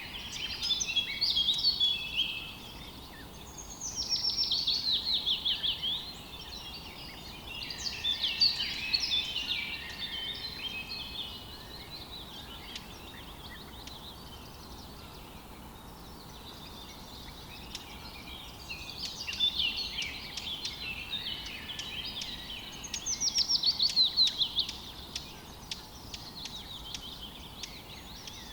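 Songbirds singing in separate phrases of two or three seconds with quieter gaps between them, some phrases rapid trills that slide down in pitch, over a faint steady outdoor hiss.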